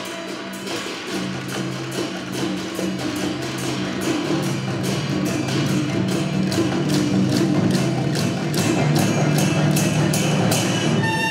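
Chinese traditional orchestra playing, with plucked lutes such as pipa and liuqin over sustained low strings and a quick, steady woodblock-like percussion beat. The ensemble fills out and grows a little louder about four seconds in.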